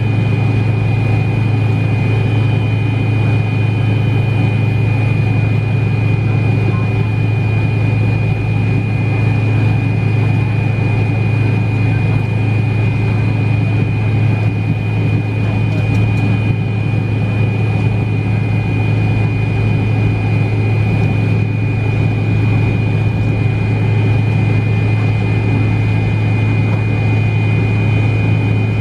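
Cabin noise inside a McDonnell Douglas MD-88 taxiing, its tail-mounted Pratt & Whitney JT8D engines running steadily at low power: a strong low hum with a thin high whine above it.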